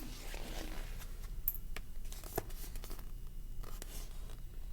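Paper rustling with a few soft clicks as the pages of a picture book are handled and turned, over a faint low hum.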